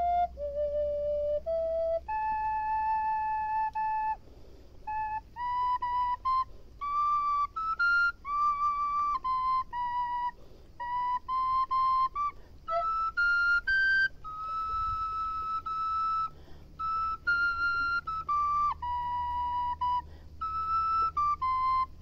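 Music: a slow solo melody on a single wind instrument, one note at a time, each held for about half a second to two seconds, over a faint low rumble.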